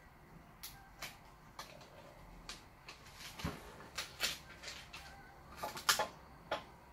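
Handling noises from a plastic screen-protector film and its backing liner being peeled and positioned on a metal installation jig: a dozen or so short clicks and crinkles, the loudest near the end.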